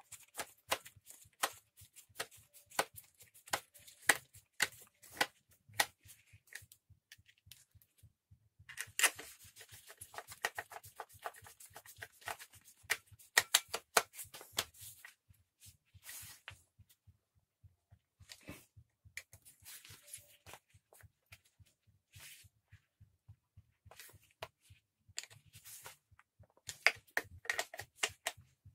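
Hand screwdriver turning the screws in a petrol brush cutter's engine housing: a run of small sharp clicks and scrapes of metal on plastic, thickest about a third of the way in and again near the end.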